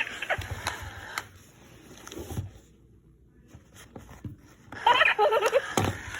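Cabbage Patch Kids doll's built-in baby voice giggling: one giggle trails off at the start, and after a short pause another giggle begins near the end.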